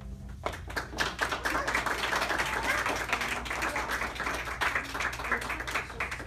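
Audience applauding, starting about half a second in and stopping just before the end.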